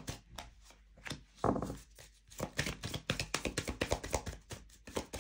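Astro Crush oracle cards being shuffled by hand: a quick, irregular run of papery taps and flicks, with a louder knock about a second and a half in.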